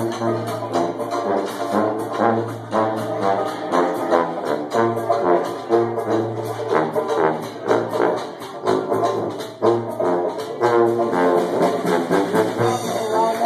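Dixieland jazz band playing live: a brass melody over a strummed banjo and a sousaphone bass line, with a steady beat.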